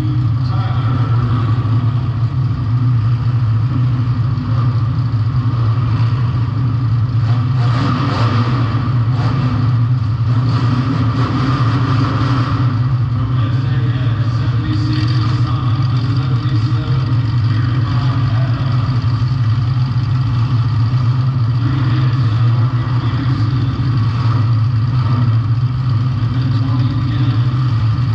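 Compact demolition derby car's engine running steadily, a loud low drone.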